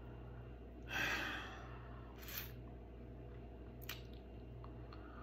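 A man's heavy breathing in a pause: a strong exhale about a second in and a shorter breath a little after two seconds, then a small click, over a steady low hum.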